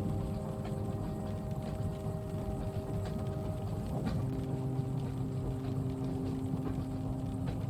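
Moving train heard from inside the carriage: a steady low rumble with a humming drone that shifts pitch about halfway through, and a few faint clicks and knocks.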